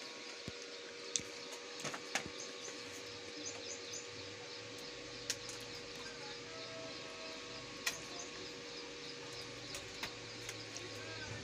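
Quiet room tone with a steady faint hum, a few sharp clicks and taps as a phone and its box are handled, and small birds chirping in the background.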